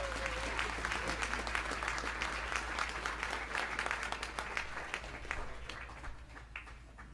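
Audience applauding at the end of a song, dense clapping that thins out and fades away over the last few seconds.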